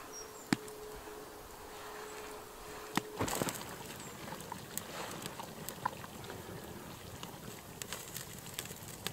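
Wood campfire crackling with scattered small pops and a few sharper cracks, under a pot of stew on the boil. A faint steady whistle is heard for the first three seconds.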